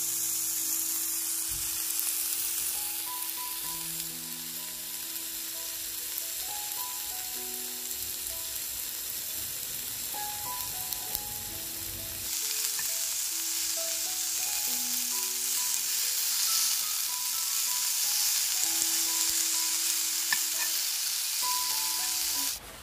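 Black pork sizzling steadily on a ridged grill pan over a tabletop brazier, the sizzle growing louder about halfway through. A soft background melody plays underneath.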